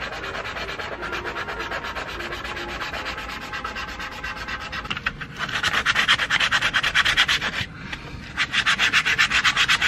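Sandpaper rubbed by hand in rapid back-and-forth strokes, roughening an inflatable dinghy tube and the back of a repair patch for gluing. The strokes pause briefly twice and are louder after about halfway.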